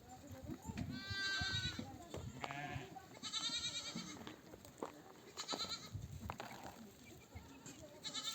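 Sheep bleating, ewes and lambs calling to each other: about half a dozen separate wavering bleats, some overlapping, with light scuffling of the flock underneath.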